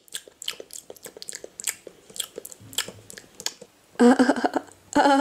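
Mouth chewing and crunching: a run of irregular short crunches and clicks, as of munching lettuce. About four seconds in, a loud pitched call starts, in two short bursts.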